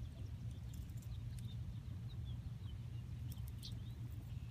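Steady low wind rumble on the microphone, with faint short bird chirps and a few light clicks over it.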